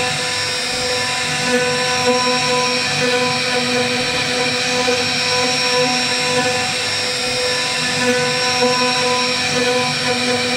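CNC router spindle running and carving wood with its bit: a steady whine made of several unchanging tones over the noisy hiss of the cut.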